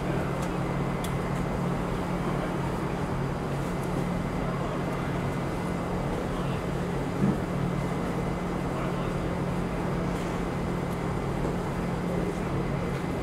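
Steady city background noise: a constant low hum under distant traffic, with one brief faint knock about seven seconds in.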